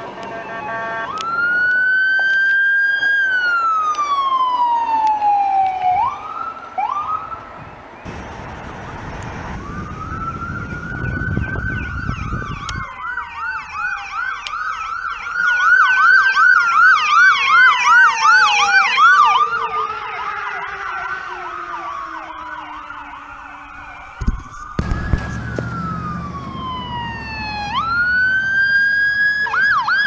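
Electronic emergency-vehicle sirens: a slow wail rising and falling in pitch, then a rapid yelp, with two or more sirens sounding together in the middle, where it is loudest. Near the end a wail rises again and breaks into yelp.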